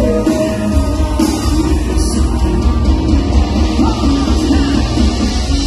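Loud rock music with heavy bass.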